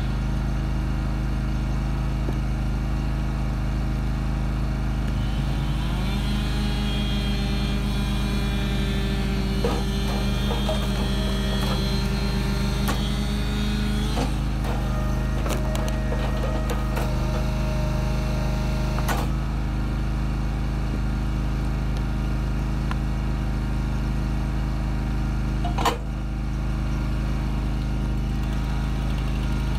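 Small gas engine of a hydraulic log splitter running steadily, with a whine over it that shifts pitch a few times as the splitter works. A single sharp knock comes a little before the end.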